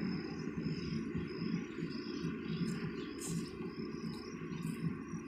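Insects chirring steadily over a continuous low rumble.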